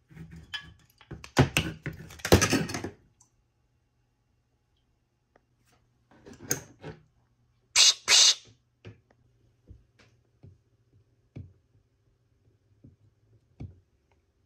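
A WD-40 aerosol can spraying in short, irregular sputtering bursts, a can low on propellant. About eight seconds in come two short hissing blasts of compressed air from a metal air blow gun, followed by light knocks and clicks as the gun's nozzle is set onto the can's valve.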